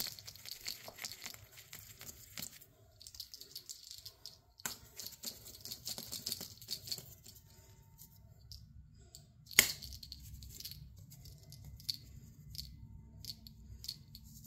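Crinkling and rustling of a plastic party bag being handled, with scattered light clicks and one sharp knock about ten seconds in.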